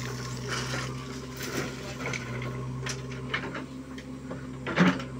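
JCB 3DX backhoe loader's diesel engine running steadily while soil and stones pour from the bucket and the bucket and arm rattle and knock, with one loud metallic clank near the end.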